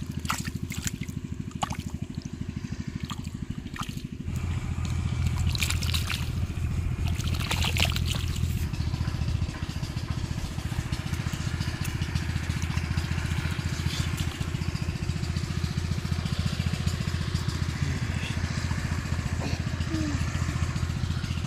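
A small engine running steadily, a fast even pulse that gets louder about four seconds in, with water splashing from fish flapping in shallow water and hands groping through it.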